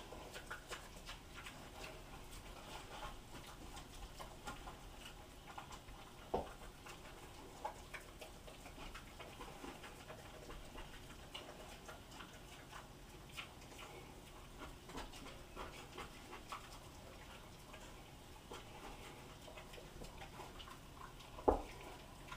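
Pot-bellied pig and dog eating: faint, irregular chewing and smacking clicks, with two sharper knocks, one about six seconds in and one near the end.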